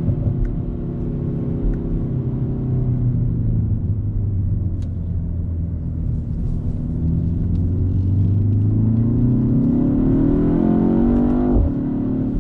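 BMW X1 M35i's turbocharged 2.0-litre four-cylinder engine heard from inside the cabin, running at low steady revs at first. From about eight seconds in the revs climb as the car accelerates, then fall away sharply near the end with a brief louder burst.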